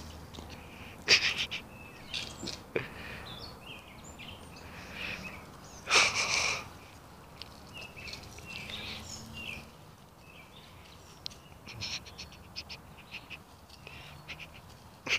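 Outdoor ambience with short bird chirps scattered through, and a few sudden rustling knocks, the loudest about a second in and around six seconds in.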